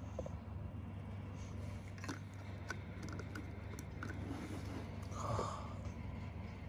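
Light clicks and taps of a plastic mecha toy figure being handled and set down on a table, over a steady low hum, with a brief louder sound about five seconds in.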